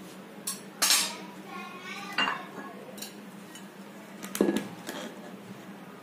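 Knife and plastic dishware clattering: a knife knocking and scraping against the side of a plastic bowl as it loosens a steamed dhokla, with a few sharp clacks, the loudest about four and a half seconds in as a clear plastic lid goes onto the bowl.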